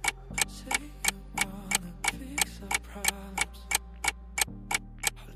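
Countdown-timer sound effect: a clock ticking evenly about three times a second over soft, sustained background music.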